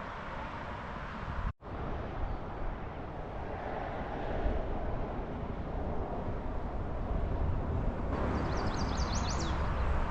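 Steady rushing of river water, with a bird giving a quick run of high chirps near the end.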